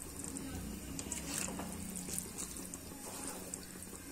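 A slotted spatula stirring a wet cabbage-and-potato curry in a pan: soft squelching through the gravy with a few light scrapes against the pan.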